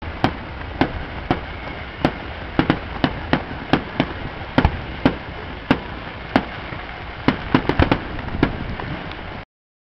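Distant fireworks display: a rapid, irregular string of sharp bangs, about two or three a second, over a steady rush of wind noise on the microphone. The sound cuts off suddenly near the end.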